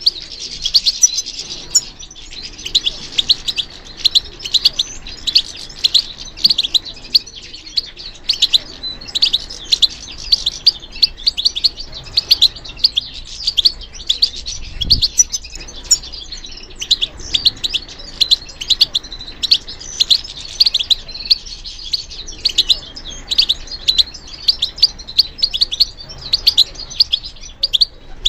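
European goldfinch singing: a continuous, fast twittering of high chirps and trills.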